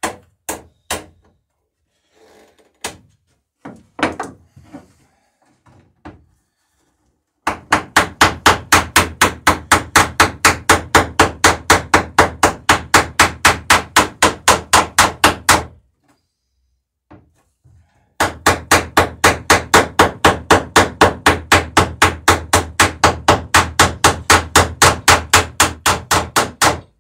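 Hand hammer peening boat rivets over against a backing iron on a wooden dory's planking. A few single taps come first, then two long runs of fast, even blows, about five a second, with a short pause between them.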